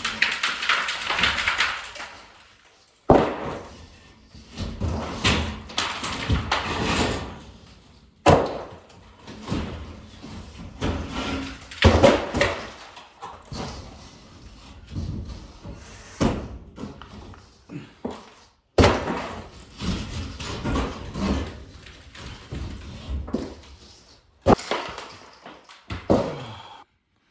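Wall paneling being pulled down by hand: sheets cracking and tearing off the wall, scraping, and falling with repeated slams and clatters.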